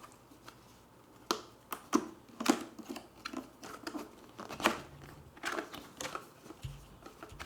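A cardboard microphone box being opened and its packaging handled: irregular rustles, scrapes and light knocks.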